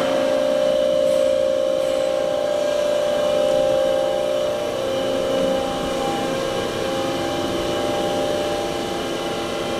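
Makino A51 horizontal machining center running under power: a steady machine hum made up of several constant tones. The strongest tone fades away about halfway through while the rest of the hum continues.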